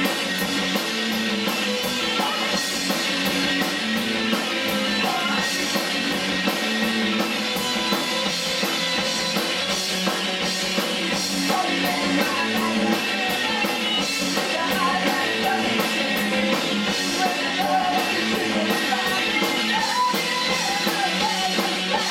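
Rock band playing live: distorted electric guitars, bass and a drum kit come in together at the start after a lone guitar, with a sung vocal over the steady beat.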